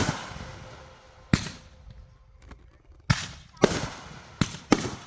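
Consumer fireworks going off: five sharp bangs at uneven intervals, each trailing off briefly, with two pairs in quick succession.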